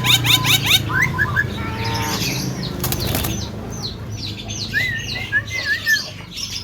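Javan myna (jalak kebo) calling: a quick run of repeated rising chirps that stops about a second in, then scattered falling chirps and a wavering whistle near the end. A rustle of flapping wings about three seconds in.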